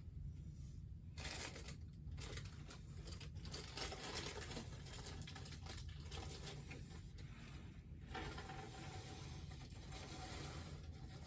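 Plastic cereal-bag packaging crinkling and rustling as Cheerios are handled. It starts about a second in, with a brief lull near eight seconds.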